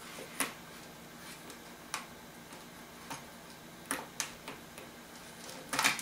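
Scattered small sharp clicks of a screwdriver working the screw out of a plastic remote-control transmitter's battery cover, with a louder quick cluster of plastic clicks near the end.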